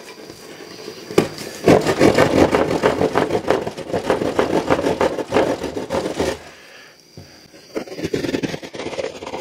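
Milwaukee hand drywall saw sawing through drywall in rapid back-and-forth strokes. Two bouts, with a short pause about two-thirds of the way through.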